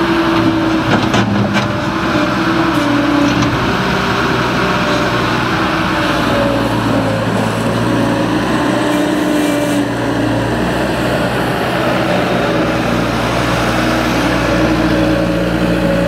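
Bobcat S185 skid-steer loader's diesel engine running under load, its note shifting pitch a few times. In the first few seconds there is a clatter of concrete rubble dropping from the bucket into the steel dumpster.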